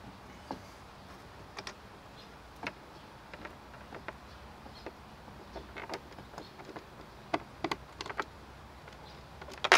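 Scattered small clicks and taps of hands fitting the dump-latch handle and its pin into the poly bed of a Gorilla Carts dump cart, with a louder knock near the end.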